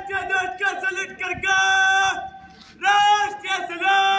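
A slow sung melody of long held notes, some scooping up into pitch, with short gaps between phrases: the national anthem during flag hoisting.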